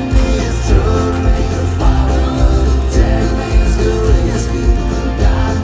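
Background music: a country-style song with guitar, heavy bass and a steady drum beat.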